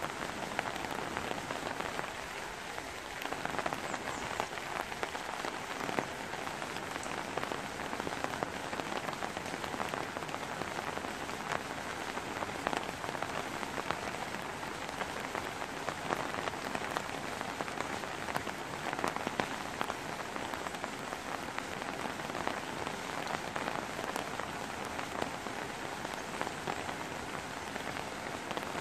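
Steady rain falling: an even hiss dense with small, quick drop ticks that holds level throughout.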